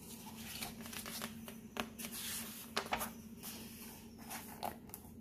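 Pages of a picture book being turned and pressed flat by hand: a run of paper rustles and crinkles with a few sharp clicks, busiest about two to three seconds in.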